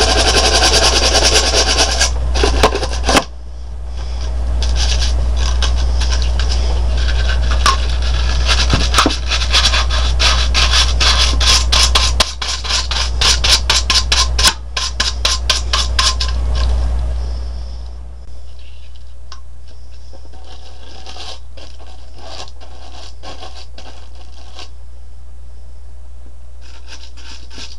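Rapid back-and-forth scraping of a small brush scrubbing dirt off a gray plastic needle-bed section of a Bond Ultimate Sweater Machine, lasting about eighteen seconds. The scrubbing then stops, leaving only scattered light clicks of the plastic sections being handled over a steady low hum.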